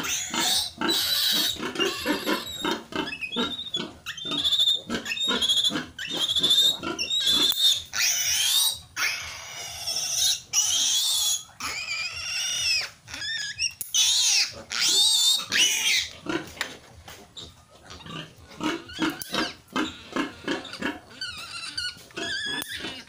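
Newborn piglet squealing while held and handled: a run of shrill, high squeals, loudest and longest in the middle, giving way to shorter, softer grunts and squeaks near the end.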